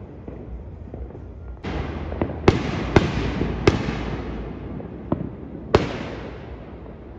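Aerial fireworks bursting: a hissing crackle starts about a second and a half in, with several sharp bangs over the next two seconds and one more bang a couple of seconds later.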